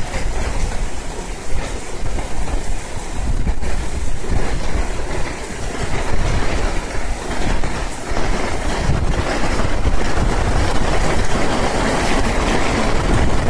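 Heavy rain pouring down onto a street and parked cars: a loud, steady rush of noise with a low rumble underneath.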